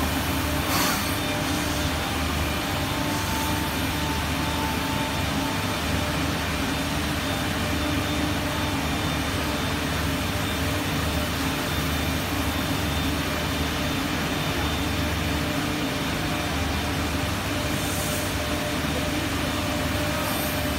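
Woodmaster five-axis, four-tool CNC wood router running as its spindle head moves and tilts over a wooden chair seat: steady machine noise with a low hum and a faint high whine. Two brief hisses come about a second in and near the end.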